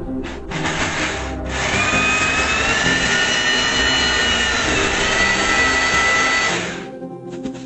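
A power tool running with a high whine for about six seconds, then cutting off, over background music.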